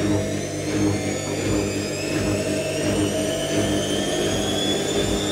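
IKEA RENLIG IWM60 washing machine spinning up on its 1200 RPM final spin, its motor whine rising slowly in pitch over a low pulsing hum from the turning drum. The motor has some roughness from its bearings.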